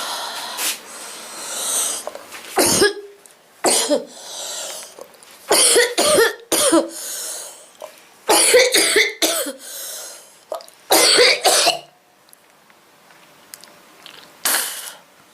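A woman with a bad cold coughing in repeated fits: short sharp coughs in clusters of one to four, with breathy intakes between them and a last single cough near the end.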